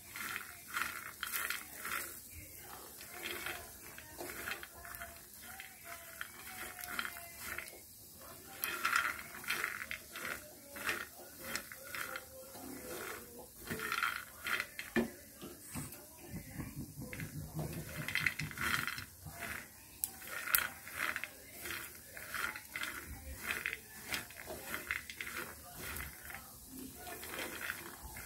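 Fried peanuts being stirred in a nonstick frying pan with a silicone spatula: the nuts rattle and clatter against the pan and each other in repeated, irregular sweeps.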